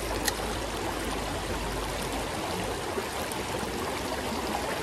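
Shallow creek running over a rocky riffle: a steady rush of water, with a single light click just after the start.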